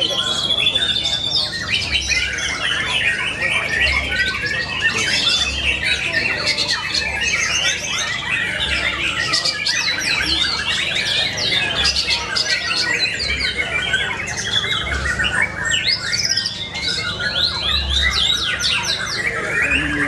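White-rumped shama (murai batu) song, loud and unbroken, made of fast trills and quick sweeping whistled notes, with other contest birds singing over one another.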